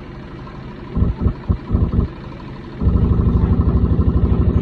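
Consul 11 kg CWH11 washing machine shaking hard as it runs, a rapid, low rhythmic thumping. It comes in a few short bursts about a second in, then settles into a steady beat from about three seconds in.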